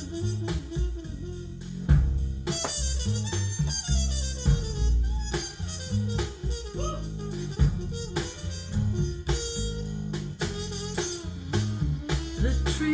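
Instrumental blues-rock music with drums, a heavy bass line and a gliding lead melody, played back through a pair of hi-fi speakers and picked up by a microphone in the room.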